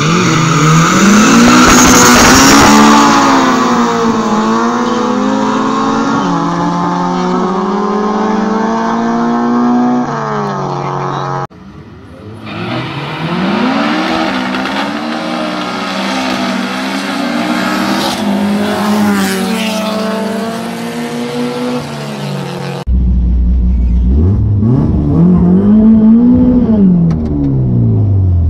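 Street-race cars, a nitrous-fed B-series Honda Civic EK and a naturally aspirated 2.4-litre car, launching and accelerating hard through the gears, engine pitch climbing then dropping at each shift. After two cuts, the last few seconds are heard from inside a car's cabin: a loud low drone with one rev rising and falling back.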